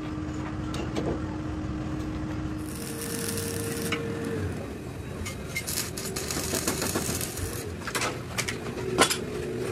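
Arc (stick) welding on a steel truck chassis rail: two stretches of crackling hiss from the arc, over a steady hum, with a few sharp metallic clicks.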